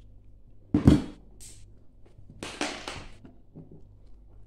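A dull thump about a second in, then a brief hiss and a short scraping, rustling noise a little later, like things being handled and set down on a table.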